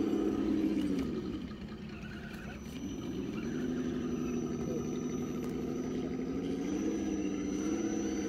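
RC rock crawler's electric motor and gearbox whining under throttle. The whine drops away about a second in, then rises again and holds at a fairly steady pitch as the crawler drives on.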